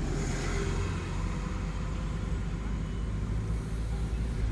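Car driving on city streets: a steady low engine and road rumble, with traffic noise around it.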